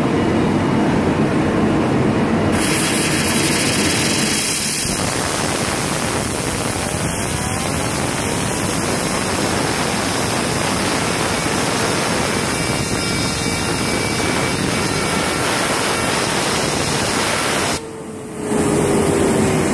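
Compressed-air blow gun blasting a fidget spinner, a loud steady hiss of air with a faint whine from the spinning bearing gliding in pitch. The air cuts off for about half a second near the end, then starts again.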